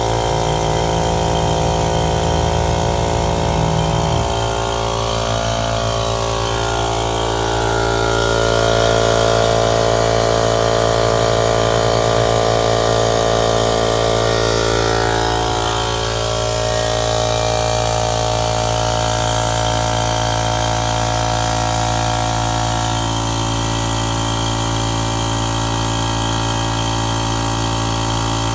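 Air compressor running steadily with a continuous hum, inflating an ATV tire that is slowly losing air.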